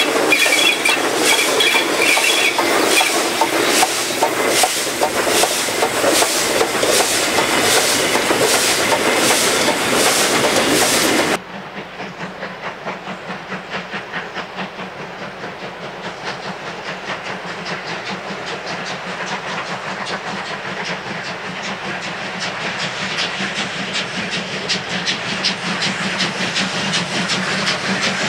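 Large steam locomotive passing close at speed: a loud rush of running gear, wheels and steam hiss with a regular clatter. About eleven seconds in it cuts to a steam-hauled train working hard further off, its rapid exhaust beats growing steadily louder as it approaches.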